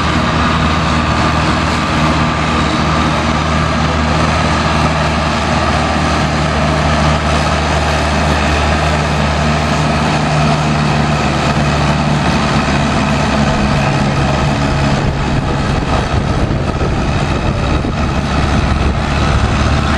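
Vintage farm tractor engine running steadily under load as it drags a weight-transfer pulling sled.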